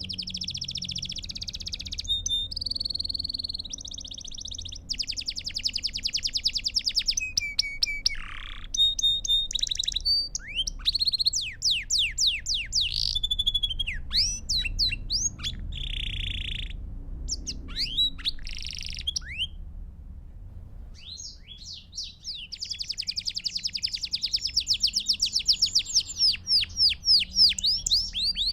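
Domestic canary ("Belgian canary") singing a long, varied song: fast rattling trills, rolling phrases and quick sweeping whistled notes, with a brief pause about two-thirds of the way through before another long trill.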